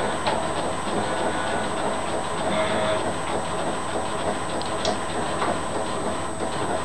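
Microwave oven running with food inside: a steady, noisy hum.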